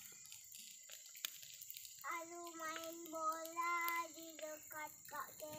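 A high voice singing a short run of held notes from about two seconds in, after a few faint clicks, with a faint steady high whine behind it.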